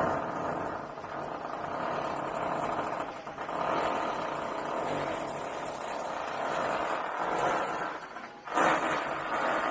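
A long, melodic fart with a buzzing pitched tone. It runs for about eight seconds with a brief dip about three seconds in, then breaks off and starts again near the end.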